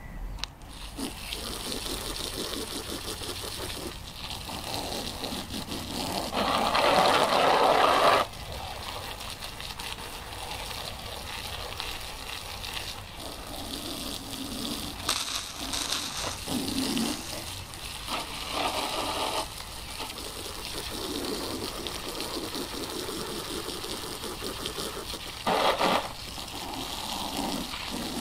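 A strong jet of water spraying onto a muddy RC buggy and spattering off its chassis, wing and wheels, the sound changing as the jet moves over different parts. It is louder for about two seconds some six seconds in.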